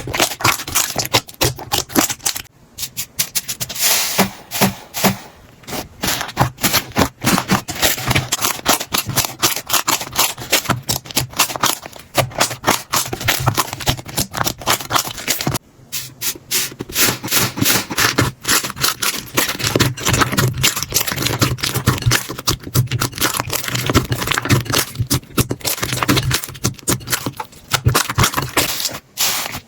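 Slime being squeezed, pressed and poked by hand, giving a dense run of rapid crackling clicks and squishes that pauses briefly twice.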